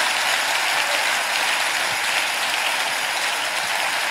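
A large audience clapping together in a steady round of applause.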